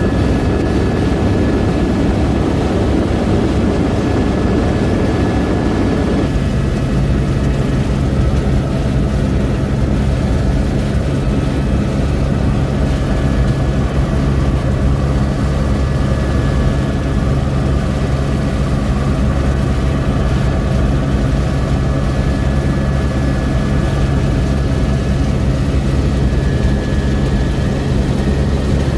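Helicopter rotor and engine droning steadily, heard from inside the cabin in flight. About six seconds in, a rushing noise drops away and leaves a steadier low hum.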